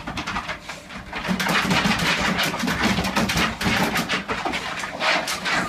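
A running home treadmill with a rapid patter of footfalls and a small dog's paws on the moving belt, over a low motor hum.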